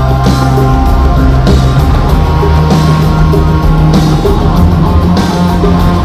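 Loud rock music with guitar, a soundtrack track playing steadily with a recurring beat.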